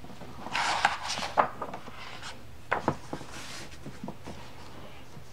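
A picture-book page turned by hand: paper rustling and sliding for about a second, then a sharp tap as it lands, and a few lighter taps and a brief rustle as the hands smooth the book flat.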